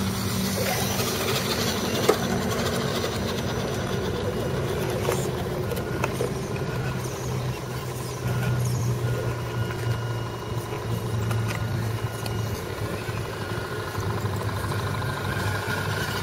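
Small electric motors and geartrains of RC scale crawler trucks whining as they crawl slowly through dirt ruts, a steady hum with thin high-pitched whines that come and go. A single sharp click about two seconds in.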